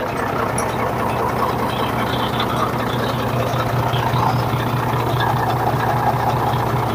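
Hino truck's diesel engine idling steadily, with a low hum and a fast, even firing beat.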